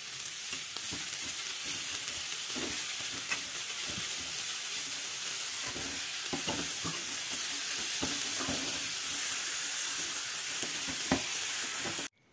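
Sliced vegetables sizzling steadily in a frying pan as they are stirred with a metal fork, with scattered light taps and scrapes of the fork against the pan. The sizzle cuts off suddenly near the end.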